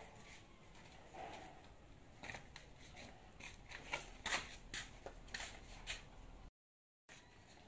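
Faint scattered clicks and scrapes of a man's footsteps and of his hand handling the camera as he steps down from a metal chair and walks up to it. The sound drops out briefly near the end.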